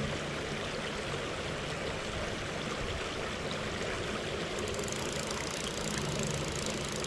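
Shallow creek riffle rushing steadily over gravel. Rapid clicking comes from the fly reel as line is wound in, about two-thirds through and again near the end.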